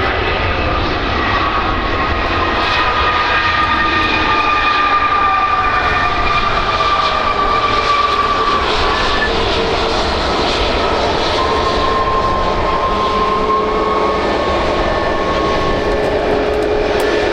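Airbus A321neo jet engines running loudly and steadily over a low rumble. Several whining tones slowly fall in pitch.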